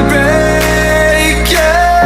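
Background music: a slow song with a long held melody note that glides up to a new held note about one and a half seconds in, over steady low sustained notes.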